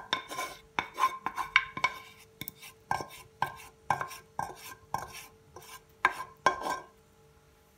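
A utensil scraping and knocking inside a saucepan, about two strokes a second with a short ring after each, scraping out the last of the hot chocolate mixture. The strokes stop about seven seconds in.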